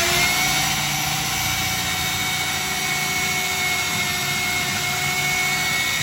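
Electric drill motor running freely at a steady high speed with an even whine.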